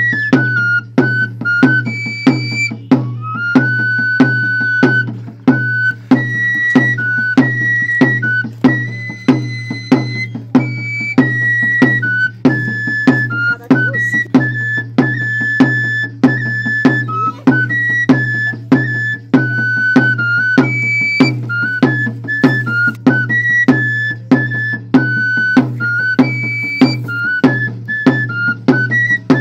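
Traditional music: a flute plays a repeating melody over a steady drum beat of about one and a half strokes a second.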